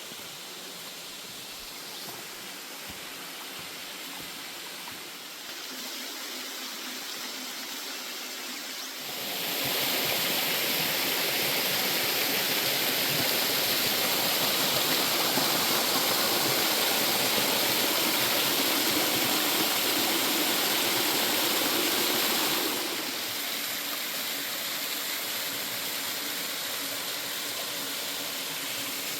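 Waterfall with a modest flow: a steady rush of falling water that gets suddenly much louder about nine seconds in and drops back part-way about two-thirds of the way through.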